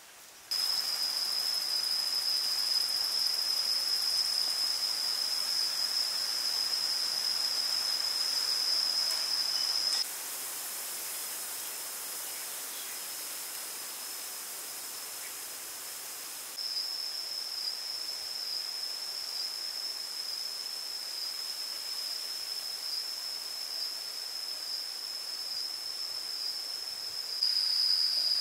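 Forest insects buzzing in a steady, high-pitched chorus over a hiss of ambient noise. The sound drops abruptly about ten seconds in, returns louder some six seconds later, and jumps up again near the end.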